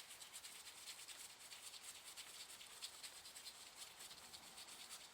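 Faint, dense run of scratchy metal ticks and rubbing as the long steel through-bolt of a Lucas C45 third-brush dynamo is turned out and drawn from its housing.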